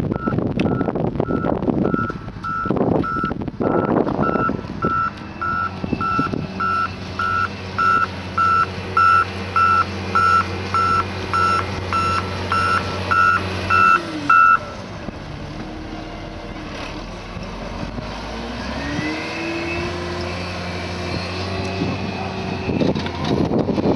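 Motor grader's reversing alarm beeping steadily, about one and a half beeps a second, over its diesel engine running. The beeping stops a little past halfway; the engine note then drops and rises again. Gusts of wind on the microphone near the start.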